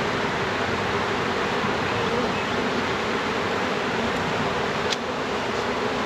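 Many honey bees buzzing steadily, released from a package into a hive, with a single sharp click about five seconds in.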